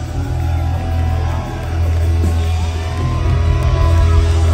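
Live rock band with a chamber orchestra playing loudly through a concert PA, heavy on the bass, as the music builds in two steps. Audience whoops and shouts rise over it.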